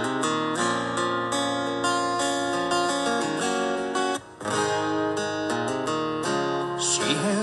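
Acoustic guitar strumming chords, the instrumental opening of a song, with a brief break about four seconds in.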